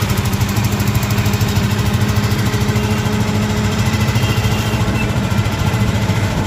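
Auto-rickshaw engine running steadily with a fast, even throb as it drives along, heard from inside the cabin.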